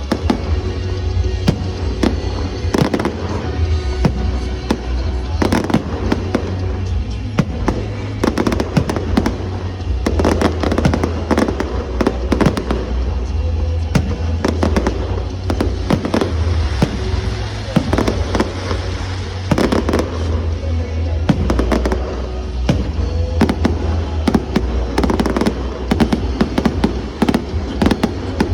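Fireworks display: a dense, continuous run of shells bursting, bangs and crackles, with music playing underneath.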